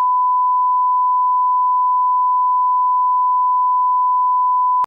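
Bars-and-tone reference test tone: one steady, unwavering pitch that cuts off suddenly near the end.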